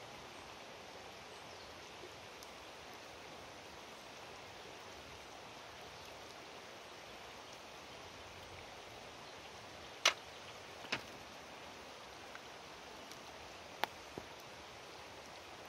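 A steady hiss, with a few sharp clicks and knocks of a spoon and sauce containers being handled about two-thirds of the way through: two louder knocks about a second apart, then two more a few seconds later.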